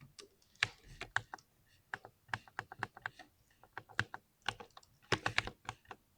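Mechanical keyboard keys being typed in irregular bursts of sharp clicks, several keystrokes at a time with short pauses between.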